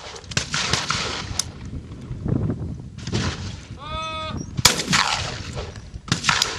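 Shotguns firing at clay targets on a trap range: sharp shots with a short echo after each, a couple near the start, a loud one about two-thirds of the way through and another near the end.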